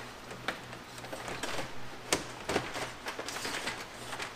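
Scattered light plastic clicks and knocks as a flathead screwdriver pries back the retaining tabs on the radiator fan shroud and the fan is worked upward, over a faint steady hum.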